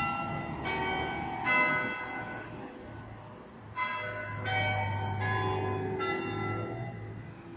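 Church bells ringing: a series of separate strikes at different pitches, each ringing on, with a short pause partway through. A low steady hum sits underneath through the middle.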